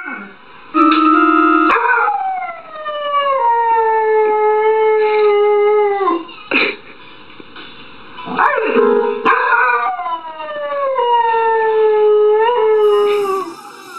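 A dog howling: two long drawn-out howls, each sliding slowly down in pitch. Just before each howl come short steady notes from an electronic keyboard.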